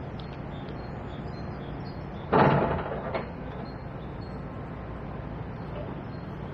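A single loud splash about two seconds in, as a roach dead bait rig weighted with SSG shot lands in the river, dying away within a second, followed shortly by a short click. Steady flowing-river noise underneath.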